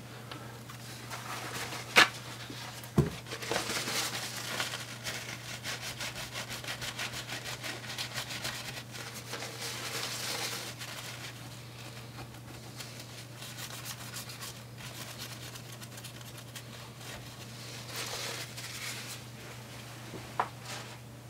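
Paper towel wet with isopropyl alcohol rubbed in quick strokes over a laptop CPU die, wiping off old thermal paste. The rubbing is strongest in the first half. A sharp click about two seconds in and a thump just after are the loudest sounds, over a low steady hum.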